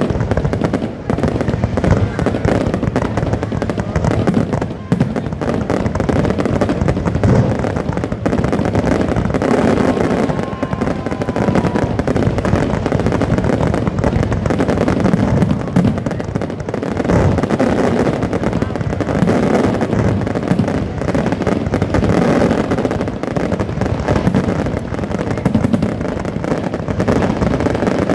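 Aerial fireworks display going off without a break: dense, rapid bangs and crackling.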